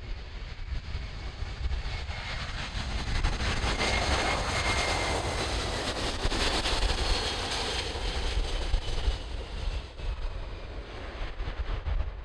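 The four Pratt & Whitney F117 turbofan engines of a Boeing C-17A Globemaster III passing low on landing. The jet noise builds to its loudest mid-way through and then eases as the aircraft rolls down the runway. A faint high whine drops in pitch as it goes by.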